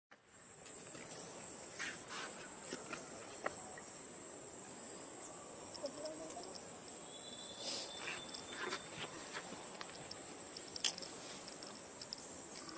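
Steady high-pitched drone of insects, with scattered light rustles and clicks and one sharper click about eleven seconds in.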